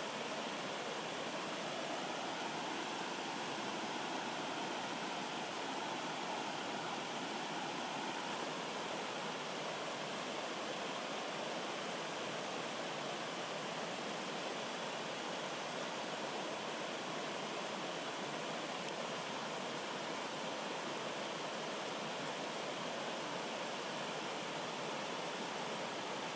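Stream water rushing steadily over small rocky cascades, an even, unbroken splashing.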